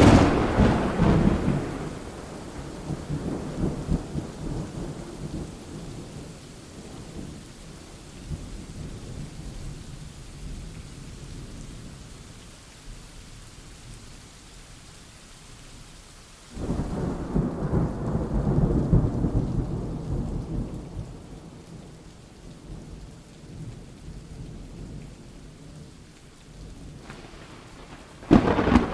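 Thunderstorm: rain hissing steadily while thunder cracks right at the start and rumbles away over several seconds. A second clap comes about sixteen seconds in and rolls on for about five seconds, and a third cracks just before the end.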